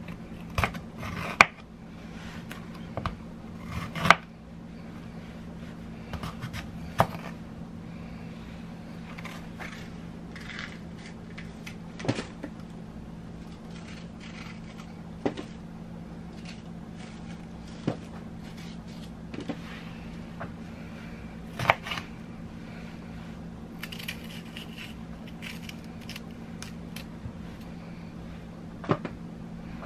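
Kitchen handling sounds: irregular clicks, knocks and clatters of dishes, utensils and containers being moved and set down, one every second or two, over a steady low hum.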